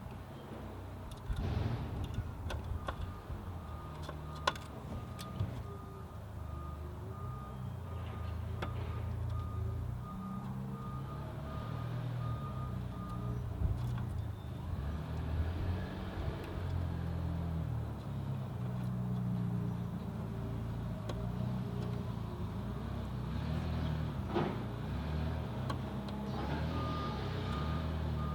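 Repeated electronic beeping at one high pitch, about two beeps a second, over a low, steady engine-like rumble. The beeping stops about halfway through and starts again near the end. A few sharp clicks sound in the first few seconds.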